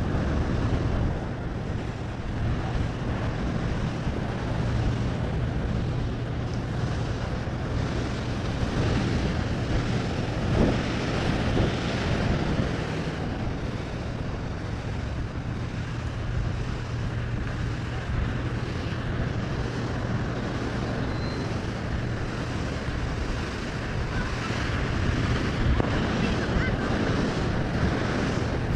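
Wind buffeting the microphone over the steady wash of ocean surf, with a low steady hum underneath.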